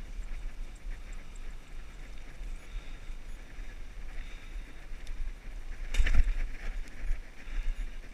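Wind buffeting the microphone of a camera riding on a moving bicycle, over the rumble of tyres on asphalt. A brief loud clatter about six seconds in, as the bike jolts.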